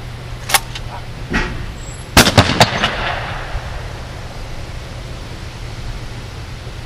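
Shotgun shots at a skeet range: a sharp crack about half a second in, fainter ones soon after, then the loudest shots in quick succession about two seconds in, ringing out afterwards.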